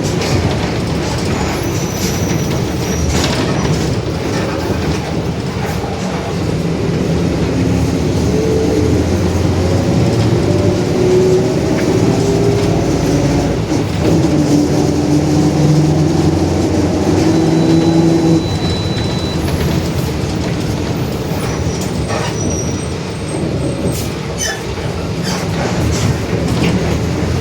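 Mercedes-Benz OF-1721 Bluetec 5 bus driving, with its differential growling: a droning tone that rises and falls with road speed and fades out after about 18 s. Clicks and rattles from the bus body run through it.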